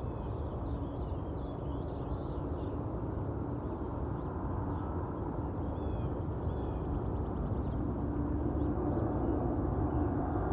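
Boeing 747 freighter's four jet engines producing a steady low rumble as it climbs out after takeoff, growing slowly louder as it comes closer overhead.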